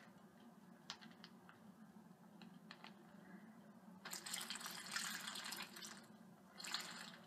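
Water poured from a drinking glass into a plastic zip-top bag, faintly: a few light clicks, then a pour starting about four seconds in and lasting nearly two seconds, and a second short pour near the end.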